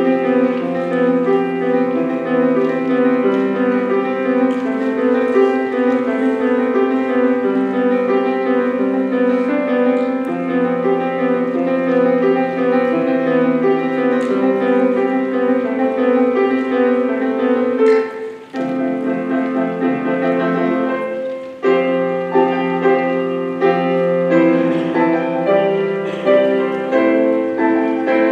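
Piano playing an instrumental interlude with no singing: sustained chords and flowing notes, with a brief pause about two-thirds of the way through before it resumes.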